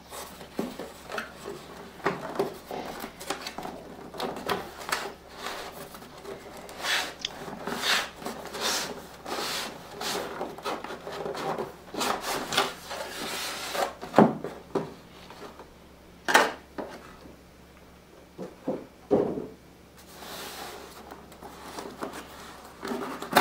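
A printed cardboard sleeve being slid off a white cardboard box: cardboard rubbing and scraping against cardboard in many irregular strokes, with a few sharper knocks around the middle.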